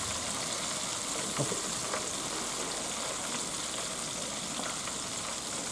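Hot oil sizzling steadily as pieces of bone-cut pike conger (hamo) deep-fry, with a few faint crackles.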